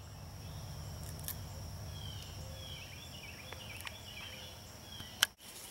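Woodland ambience: a bird's short falling chirps repeat from about two seconds in over a steady insect drone and a low rumble. A sharp click sounds near the end.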